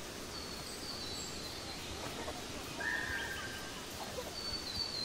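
Outdoor ambience: birds chirping in short, high, falling notes near the start and again near the end, over a steady background hiss, with a brief held call about three seconds in.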